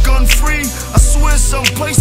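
Hip hop backing music with a heavy bass drum hitting about once a second over a deep bass line.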